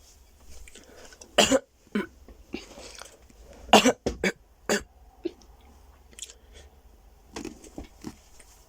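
A person coughing in a fit of several harsh coughs over a few seconds, then a few quieter coughs near the end.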